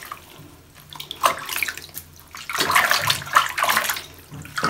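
Water splashing and sloshing in a plastic basin as hands scoop water over a kitten's fur: a splash about a second in, then a longer run of splashing from about halfway through.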